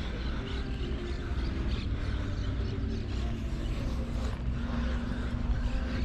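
A distant engine droning steadily over a low rumble, its pitch shifting slightly.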